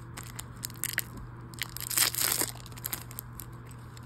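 Foil trading-card booster pack crinkling in gloved hands and being torn open, with a run of sharp crackles and the loudest tearing burst about two seconds in.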